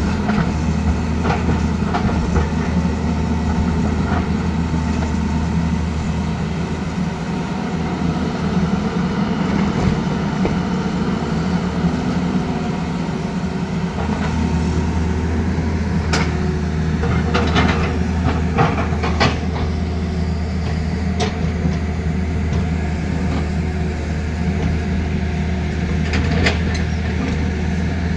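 Tata Hitachi Zaxis 220 excavator's diesel engine running steadily as it works. Sharp clacks of stone knocking against stone and the bucket come in a cluster a little past halfway and again near the end.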